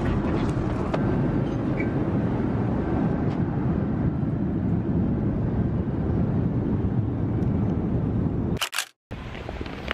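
Steady drone of a jet airliner's cabin in flight: engine and airflow noise, strongest in the low end. Near the end a couple of clicks, then it cuts off abruptly, and a quieter room hum follows.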